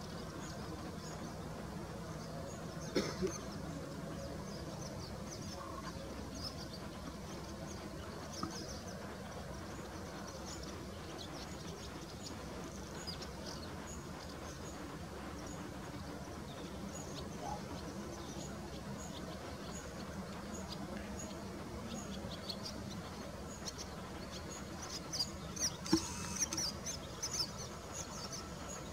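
Birds chirping, busier near the end, over a faint steady low drone from the SM42 diesel locomotive approaching slowly. A couple of sharp clicks come about three seconds in and again near the end.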